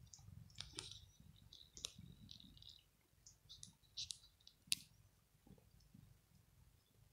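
Soft, irregular clicks of a cat's tongue licking its fur as it grooms itself, with one sharper click about two-thirds through; otherwise near silence.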